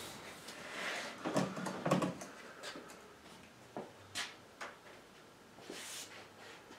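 A few light knocks and scuffs from working at a tabletop, the sharpest about four seconds in, with a short rub of steel wool across the finished wood near the end.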